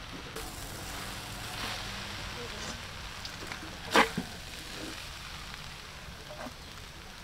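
Stir-fried noodles sizzling in a wok while a metal spatula tosses and scrapes them, with one sharp clank about four seconds in.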